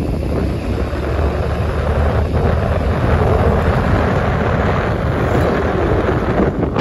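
Steady rush of wind buffeting the microphone, mixed with the running noise of the vehicle it rides on, as it travels along a paved road.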